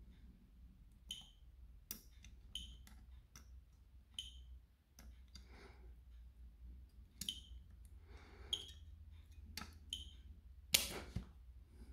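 Handheld battery spot welder firing through copper pen electrodes, welding the new board's positive, negative and balance tabs to the 18650 cells: a string of about ten sharp snaps at irregular intervals, each with a short high beep, the loudest and longest snap near the end.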